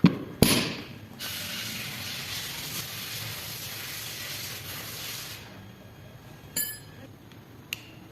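Workshop work on a Land Rover Defender transfer case being disassembled. Two sharp metal knocks come first, then a steady hiss for about four seconds, then a ringing metallic clink and a lighter click near the end.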